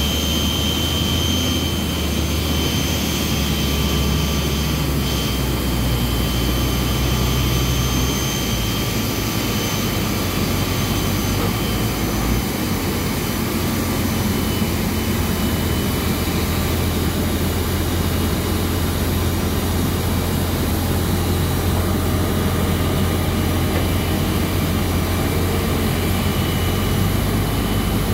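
Steady, loud engine drone of a Goldhofer AST-2 towbarless aircraft tug working under a Boeing 777's nose gear, with a steady high turbine whine over it. The low hum shifts in pitch a couple of times, about 8 and 12 seconds in.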